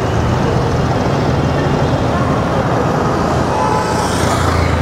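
Steady road traffic noise with a low engine and tyre rumble, heard from a moving vehicle.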